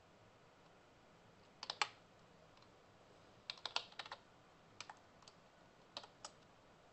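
Typing on a computer keyboard in short bursts: a few keystrokes about a quarter of the way in, a quicker run of six or seven around the middle, then two small groups of keystrokes near the end.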